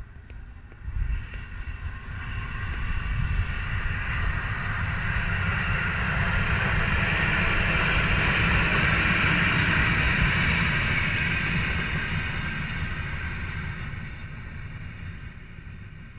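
Electric locomotive hauling passenger coaches passes by on the rails: a rumble and hiss of wheels on track that builds to a peak about halfway through and fades away, with a ringing band from the wheels and a few sharp clicks.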